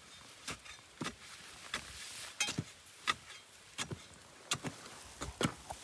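A hand tool chopping into dry ground and grass: a series of sharp, irregularly spaced strikes, roughly one every half second to second.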